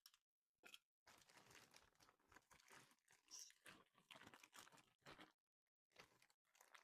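Faint crinkling of a plastic bag of cardboard jigsaw pieces being tipped out, with a scatter of small irregular clicks and crackles as the pieces pour out.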